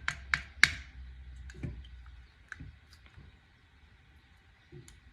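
A quick run of sharp clicks in the first second, then a few scattered light clicks and taps from handling the accordion's bass reed block and its reed valves.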